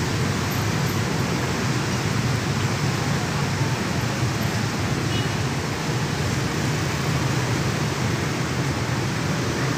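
Steady low rumble of a diesel locomotive engine running, under an even hiss.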